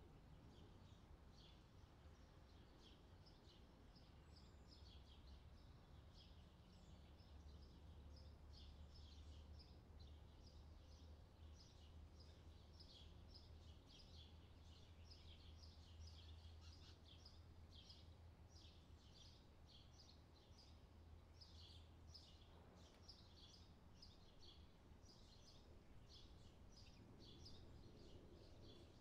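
Faint sizzling and crackling of onions, then tomatoes, frying in butter and oil in a pan, over a low hum.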